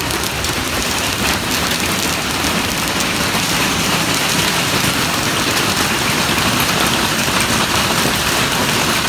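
Heavy hailstorm with rain: large, baseball-size hailstones pelting the ground and the metal barn roof in a dense, steady clatter of impacts.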